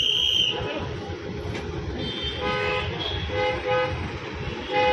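Car horns honking repeatedly over idling engines and street traffic: a few short honks two to three seconds in and a longer honk near the end, after a brief shrill high tone at the very start.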